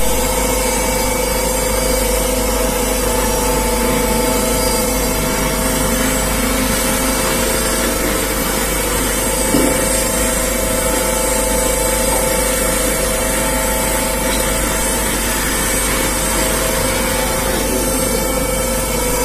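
Centrifugal vegetable-oil filter running: its electric motor and spinning bowl make a steady, unchanging machine hum and whine. One brief knock comes about halfway through.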